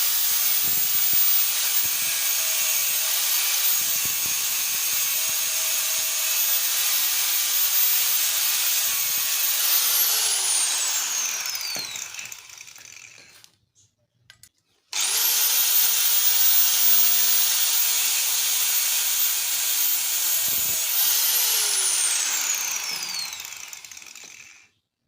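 Angle grinder running at full speed and cutting, with a very high steady whine; about ten seconds in it is switched off and winds down with a falling whine. After a few seconds of quiet it starts again with a quick rising whine, runs, and winds down once more near the end.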